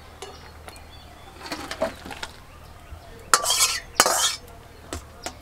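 A metal spoon clinking and scraping against a metal wok (kadai) as cooked lentil dal is scraped out into a steel bowl, with a few light clinks and then two loud scrapes a little past the middle.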